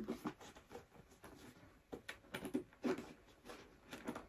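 Faint rustling and soft clicks of a black faux-leather ankle boot being handled and turned over in the hands, in short scattered bits.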